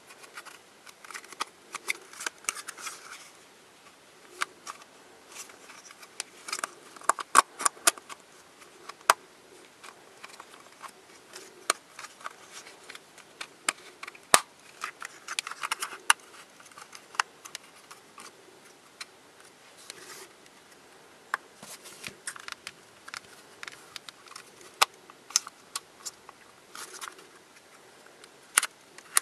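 Hard plastic pieces of a Twist Ball spherical puzzle being fitted and pressed together by hand: irregular sharp clicks and snaps, some in quick clusters, over light plastic rubbing and rattling.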